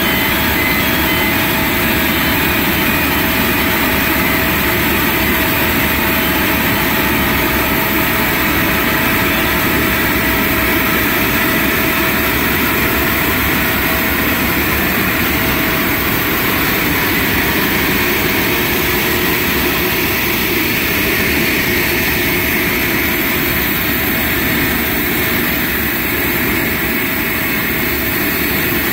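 Jet aircraft running steadily: an even rush with a constant whine.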